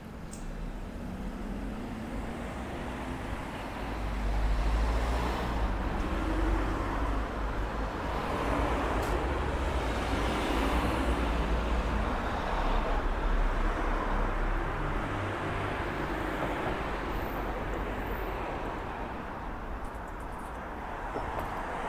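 Road traffic on a city street: cars passing, with a low rumble that swells about four seconds in and slowly eases off.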